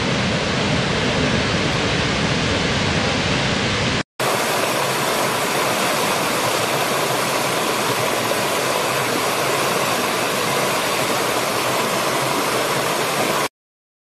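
A large waterfall's heavy flow, a steady rush with a deep low rumble. About four seconds in it cuts out, and after a brief gap a rocky woodland stream rushes over stones, thinner and with less rumble. The stream stops abruptly shortly before the end.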